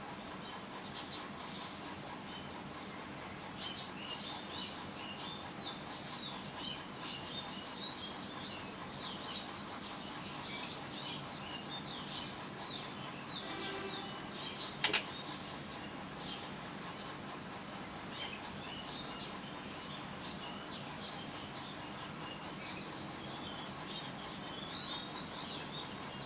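Small birds chirping over a high insect trill that pulses in runs and breaks off now and then, with a single sharp click about fifteen seconds in.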